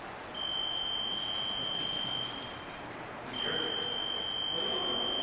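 Electric fencing scoring machine sounding its high buzzer tone twice, each lasting about two seconds with a short gap between.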